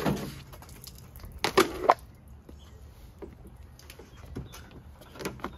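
Handling noise in a Jeep's cab: a brief rustle as the soaked rubber floor mat is pulled up, then a quick run of sharp knocks about a second and a half in, and a few lighter clicks near the end.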